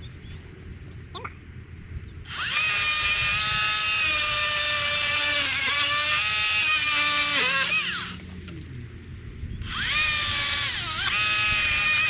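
Power saw cutting through a tree branch, running in two bursts: a whining motor starts about two seconds in and runs for about six seconds, its pitch sagging as the blade bites into the wood, then stops and starts again near the end.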